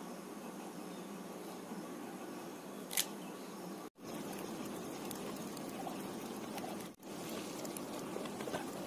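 Faint, steady background hiss with one sharp click about three seconds in. The sound drops out for an instant twice, at edit cuts.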